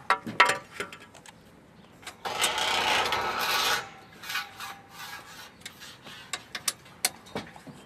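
Solar panel's aluminium frame handled on its aluminium mounting rails: a few sharp knocks in the first second, then about a second and a half of rasping metal-on-metal scrape, and scattered light clicks after.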